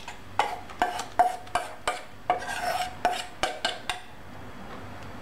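Spoon scraping mashed banana out of a small metal bowl against the rims of stainless steel bowls: about ten quick scrapes and clinks over some four seconds, the steel ringing briefly after several of them.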